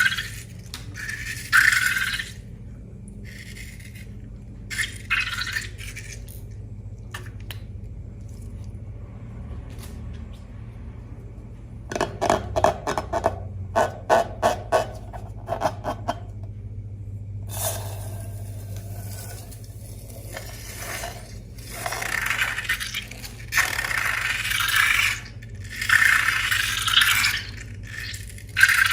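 Slime being worked by hand and tool in a container: separate scraping strokes, a quick run of clicks and crackles in the middle, then longer stretches of scraping. A low steady hum runs underneath.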